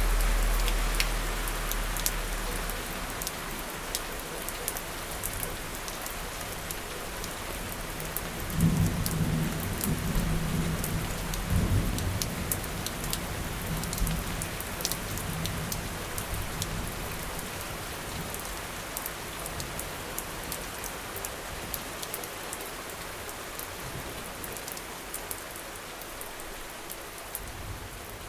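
Steady rain falling, with many distinct drops pattering close by. A low rumble dies away in the first few seconds. A roll of thunder rumbles about eight seconds in, peaks twice, then fades over several seconds.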